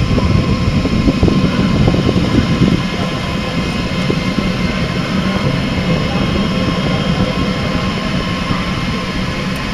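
Large-format delta 3D printer (Delta WASP 3MT with pellet extruder) running. A steady machine whine made of many fixed tones sits over a low hum, rougher and a little louder in the first three seconds.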